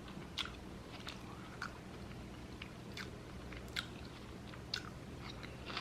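Close-up eating sounds: chewing a cheeseburger with curly fries, with scattered soft crunches and mouth clicks every second or so.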